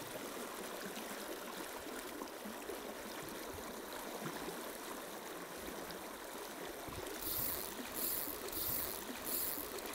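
Running water of a rocky river, a steady rush and trickle over stones. In the last few seconds a swishing sound repeats about twice a second over it.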